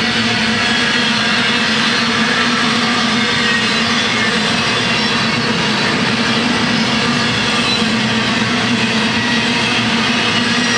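Double-stack container train rolling past: a steady, unbroken noise of steel wheels running on the rails, with a low steady hum under it.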